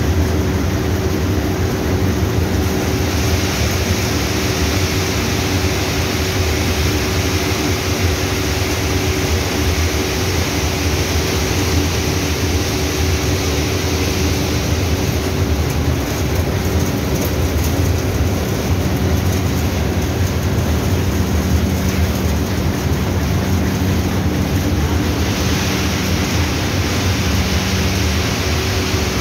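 Raisin cleaning and grading machinery running steadily: electric motors, a centrifugal blower and belt conveyors giving a constant hum under a broad rushing noise.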